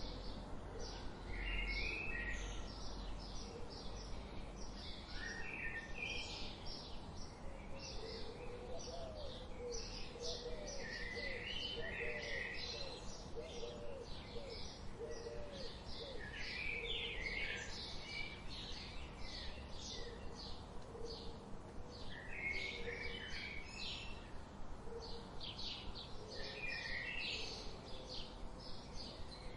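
Several songbirds chirping and singing, with many short, rapid high notes all through and a lower run of repeated short notes in the middle, over a faint background hiss.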